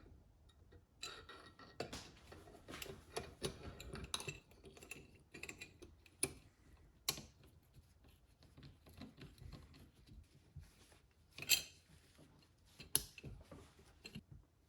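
Irregular metallic clinks, taps and scrapes of hand tools against metal parts, with two sharper knocks near the end.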